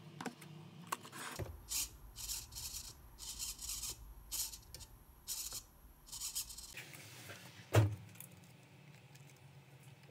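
Small RC servo whirring in short bursts, about one or two a second, as it turns the 3D-printed dashboard's steering wheel back and forth under radio control. A single knock comes near the end.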